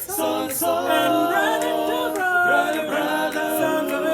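A cappella vocal group singing in close harmony, with several voices holding and sliding between sustained chords and no instruments.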